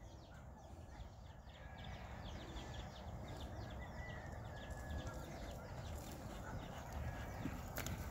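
Small birds chirping over and over, in many short falling notes. Near the end, the hoofbeats of a loping horse on soft dirt come in.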